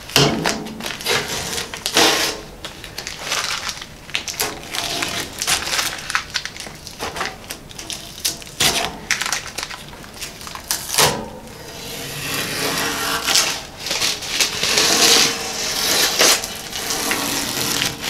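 Blue painter's tape being peeled off a freshly painted grille shell and crumpled up: an irregular run of tearing rasps, crackles and sharp snaps.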